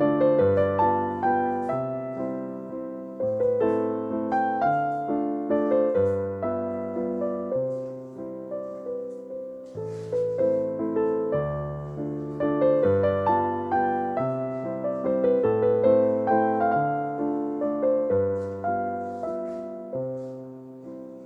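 Background piano music: a gentle melody of single notes over a stepped bass line, fading out near the end.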